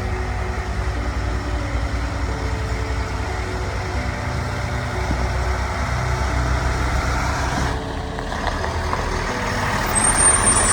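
Large military truck's diesel engine running steadily, with a brief high-pitched whistle near the end.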